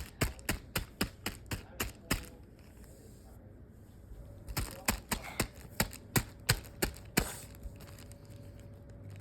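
Slime being squeezed and kneaded, popping trapped air in a rapid run of sharp clicks, about five or six a second, in two bursts with a pause between.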